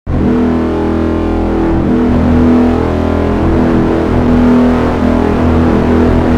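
Ship's horn sounding one long blast, a loud, steady low tone with its overtones, cutting in abruptly at the start.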